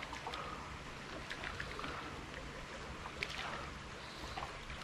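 Faint water around a kayak on a small creek, with a few small splashes and ticks as a hooked fish is played in on a fly rod.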